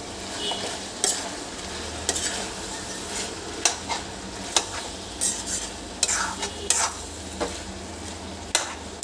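Metal spatula stirring chopped tomatoes into frying chicken curry in a metal kadai, scraping and knocking against the pan about once a second over a steady sizzle. The tomatoes have just gone in, to cook down until soft.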